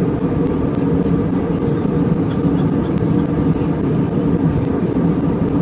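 Steady cabin noise of an Airbus A320-200 in flight at altitude, heard inside the cabin: an even engine and airflow drone with a low hum.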